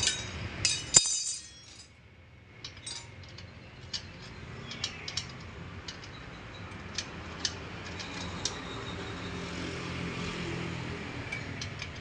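Metal parts of a spoked motorcycle wheel clinking as they are handled: a short rattle and a loud sharp clank about a second in, then scattered light single clinks.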